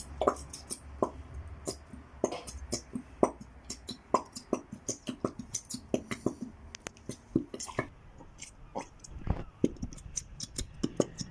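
Elmer's glue slime being mixed and squished by hand, making many short, irregular wet clicks.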